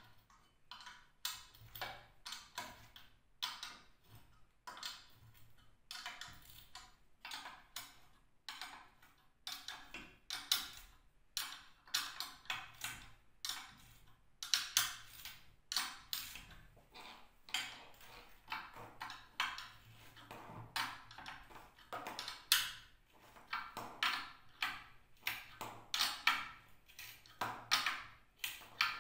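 Irregular small clicks, taps and rustles, a few each second, from hands handling a mounted electric motor, its stand and its power cord; the motor itself is not running.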